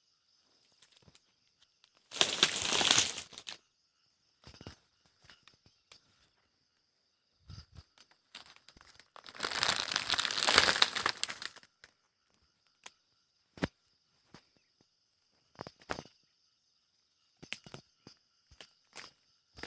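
Close rustling and crackling of dry grass and the coarse bristles of a downed wild boar as it is handled, in two longer bursts with scattered short crackles between them. A faint steady high-pitched drone of night insects runs underneath.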